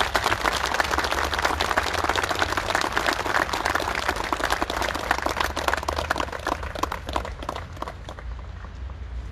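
Crowd applauding, a dense patter of many hands clapping that thins out and gets quieter in the last couple of seconds.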